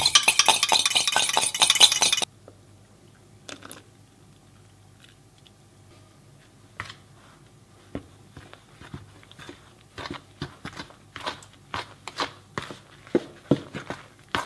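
A fork rapidly whisking egg and milk in a glass measuring jug, clinking against the glass, stops about two seconds in. Later a fork stirs the liquid into the flour-and-butter crumb in a plastic mixing bowl, making irregular scrapes and clicks that come faster toward the end.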